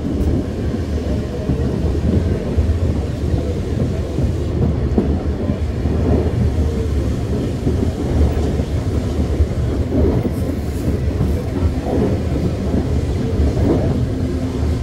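Vintage tram running on its track: a steady low rumble with occasional rattles.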